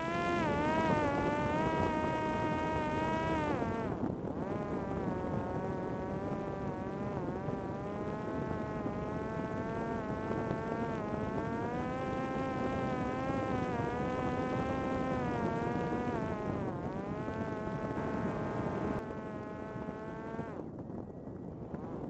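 Parrot Disco fixed-wing drone's electric motor and pusher propeller, heard from on board as a steady buzz whose pitch keeps rising and falling with the throttle. Near the end the buzz drops away, leaving a quieter rush.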